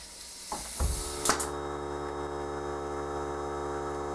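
A pneumatic brad nailer fires once, a sharp crack about a second in, driving a nail through door casing. Just before it a steady hum sets in and runs on unchanged: the air compressor feeding the nailer is running.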